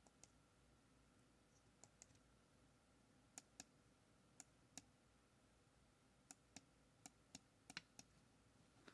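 Small tactile push buttons on an MSP430 LaunchPad board being pressed repeatedly: faint sharp clicks, mostly in close pairs, about a dozen in all.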